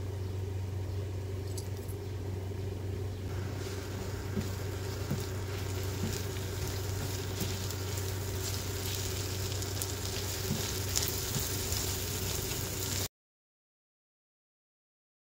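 Minced meat frying in oil in a karahi, sizzling steadily, with the spatula scraping and tapping against the pan as it is stirred, over a steady low hum. The sound cuts off completely about two seconds before the end.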